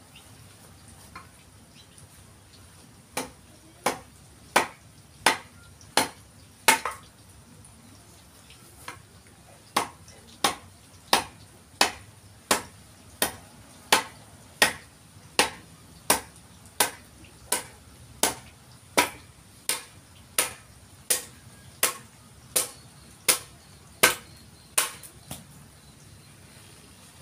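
A hatchet chopping into a forest red gum log being shaped into a didgeridoo: sharp, evenly spaced blows about one and a half a second, a short run of six, a pause of about three seconds, then a steady run of more than twenty before they stop.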